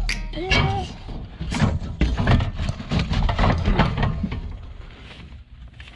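Metal roofing-style skirting panel being worked loose and handled: irregular knocks and rattles of thin sheet metal, growing fainter toward the end.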